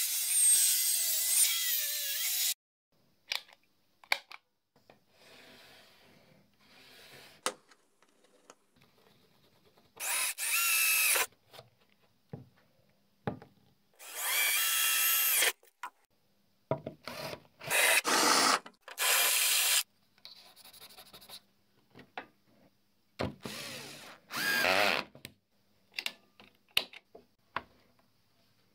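A Festool TS55 plunge saw, mounted under a table as a table saw, running through a cut in a wooden board and stopping about two and a half seconds in. Then a string of about six short separate power-tool runs, each a second or two long, one of them a cordless drill boring through the aluminium table plate, with clicks and handling noises in the quiet gaps between.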